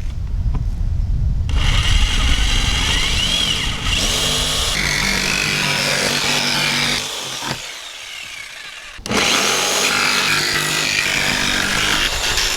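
Jigsaw cutting through the van's sheet-metal roof, a loud rasping saw with a steady motor whine. It starts about a second and a half in, stops briefly after about five seconds, then starts again abruptly and keeps cutting.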